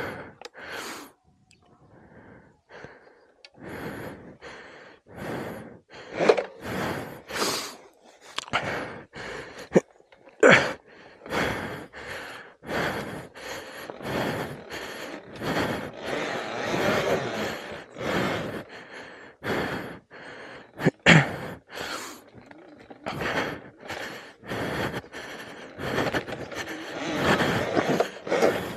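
A person panting hard, out of breath from exertion: quick, loud breaths one after another with hardly a pause. A couple of sharp knocks come through about a third and two-thirds of the way in.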